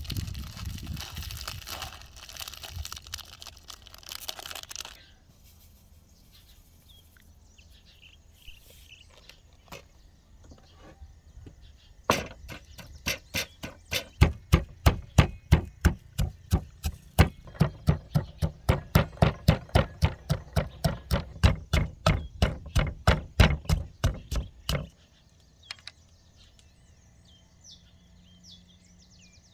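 A stone mortar and pestle pounding garlic, pepper and coriander stalks with a steady run of heavy strikes, about two or three a second, for around thirteen seconds. Before it, water running for a few seconds.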